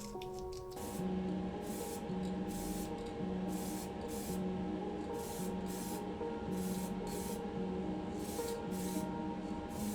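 Spray paint hissing in about a dozen short, separate bursts, painting a small plastic model-car interior part.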